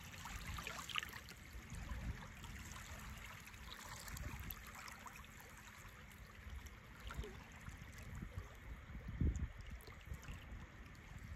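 Small lake waves lapping and trickling faintly on a sandy shore, with a brief low thump about nine seconds in.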